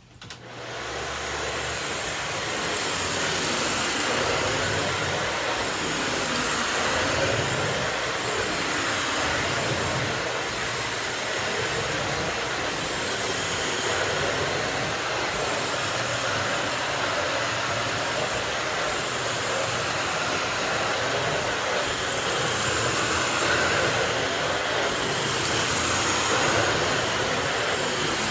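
Miele S194 Quick Step stick vacuum switched on, its motor spinning up over about two seconds, then running steadily on straight suction with a plain floor tool and no power head, sweeping up scattered rice. The noise swells and eases every few seconds as the tool is pushed back and forth.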